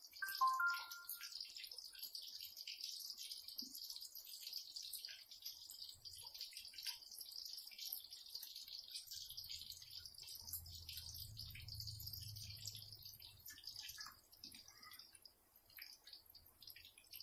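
Sardine-and-egg fritters sizzling in hot oil in a wok, a steady hiss with small crackling pops. A brief high-pitched sound comes about half a second in, and a low hum swells and fades in the middle.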